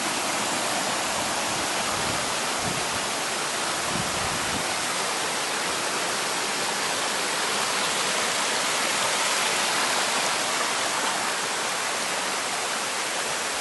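Mountain stream rushing steadily over rocks, a constant full hiss of flowing water.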